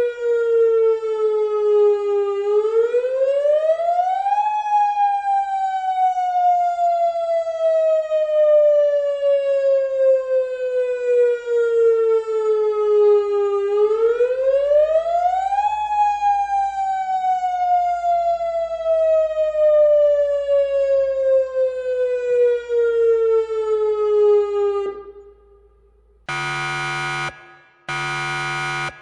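Electronic warning siren wailing: its pitch rises quickly, then falls slowly over about nine seconds, twice, before it cuts out. Near the end a harsh buzzer sounds two long beeps.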